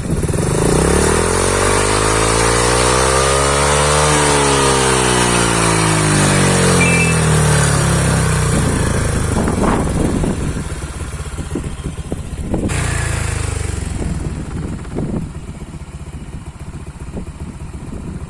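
Honda Click 125i scooter's single-cylinder engine through an aftermarket EXOS X6 exhaust, revved at full throttle. The pitch climbs steadily to a peak about four seconds in, then falls back over the next several seconds and settles to a quieter, lower run.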